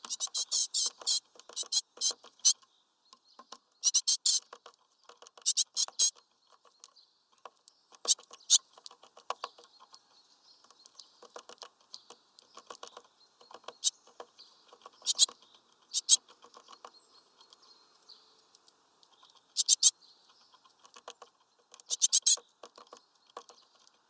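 Great tits pecking and hammering at seeds on a wooden bird feeder: quick runs of sharp taps in irregular bursts, with short pauses between.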